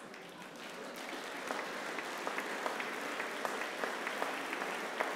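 Large seated audience applauding, the clapping swelling over the first second or so and then holding steady.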